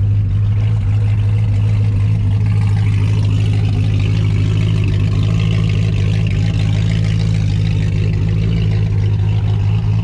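LS-swapped Chevy C10's V8, fitted with a stage 3 turbo cam, idling steadily after starting in park.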